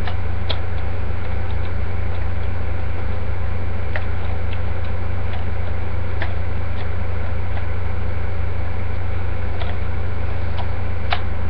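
Steady low electrical hum at an even level, with a few faint, sharp plastic clicks scattered through it as a card is worked out of a toy morpher.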